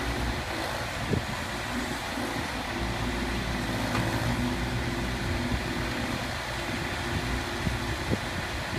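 Mini skid steer loader's engine running steadily, with a few short knocks about a second in and near the end.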